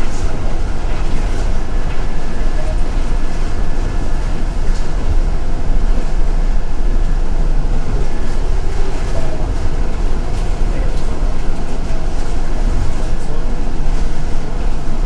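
Inside a moving city transit bus: the steady rumble of the engine and road noise, loud and unbroken, with a faint steady whine above it.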